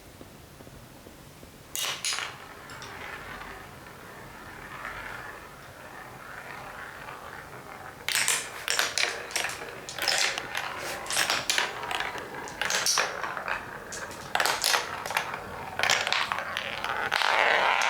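Glass marbles rolling down a marble run and clacking against the track and each other. A single clack comes about two seconds in, then a few seconds of soft rolling. From about eight seconds on there is a rapid, uneven run of sharp clicks and clacks.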